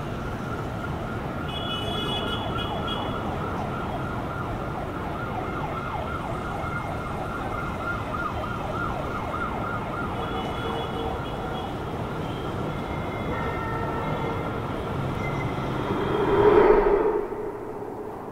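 City street ambience: a steady rumble of traffic noise with a wavering siren. The sound swells briefly near the end, then drops off sharply.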